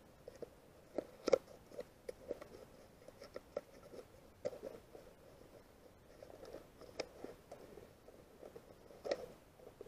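Faint scattered scrapes and clicks of a small cardboard box being opened and a power-supply brick slid out of it, with a few sharper ticks among them.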